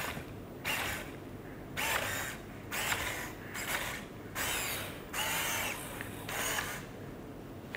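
ClicBot robot's joint servo motors whirring in short bursts, roughly one a second, as the robot moves under phone-app joystick control.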